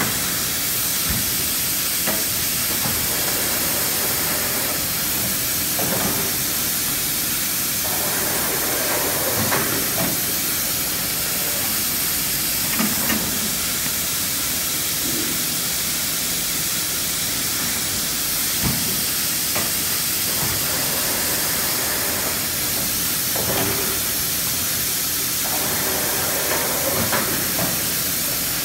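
Automatic screen-printing machine for table-tennis table tops working through its cycle under a steady hiss. Mechanical running noise comes in stretches of a couple of seconds, with scattered knocks and clunks of its moving parts.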